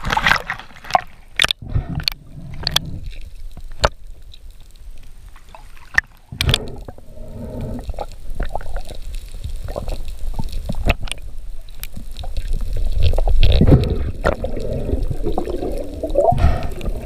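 Water splashing as a large speared fish thrashes at the surface, with scattered sharp knocks, then muffled underwater gurgling and bubbling heard through a submerged camera.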